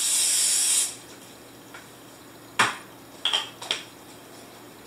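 Aerosol cooking spray hissing in one short burst of under a second, then a few sharp clicks and knocks as the can's plastic cap is snapped back on.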